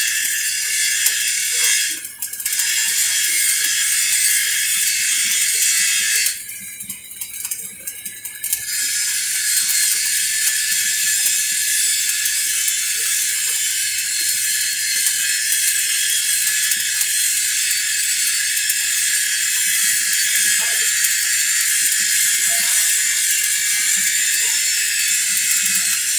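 Flux-cored arc welding: the steady crackling hiss of the arc. It breaks off briefly about two seconds in, then stops for about two seconds around six seconds in before the arc is struck again and runs on.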